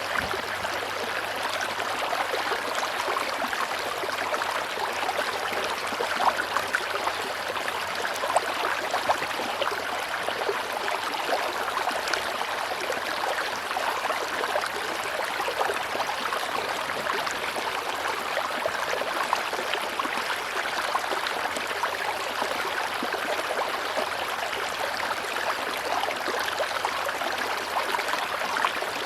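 River water rushing and burbling over rocks, a steady flow with small splashes and gurgles.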